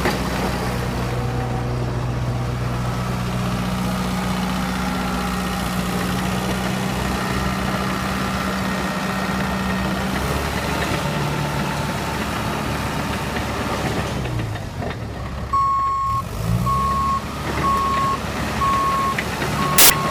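Dresser TD9H crawler dozer's diesel engine running steadily. About three quarters of the way in, the engine note dips and climbs again and the reversing alarm starts beeping, a steady single-tone beep a little under once a second, as the dozer backs up.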